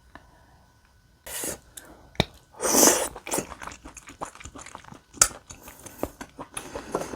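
Close-miked eating of spicy tteokbokki with beef large intestine: after about a second of quiet, loud bites and sticky, wet chewing with many sharp clicks and crackles.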